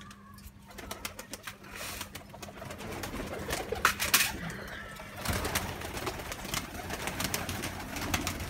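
Domestic pigeons coming out to feed at a grain tray: cooing, wing flaps and many small clicks of pecking and footsteps, growing denser about halfway through. A couple of louder knocks about four seconds in.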